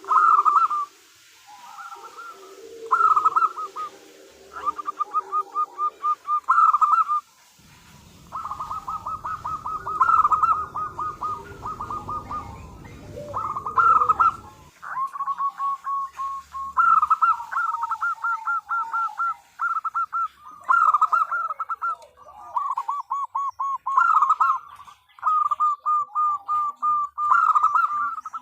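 Zebra dove (perkutut) cooing: one trilled, stuttering phrase after another with short gaps, in the call billed as a female calling the male. A low rumble runs under the calls for several seconds in the middle.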